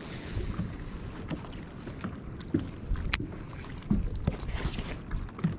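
Low rumble of wind on the microphone and water moving against a fishing boat, with a few light knocks and one sharp click about three seconds in.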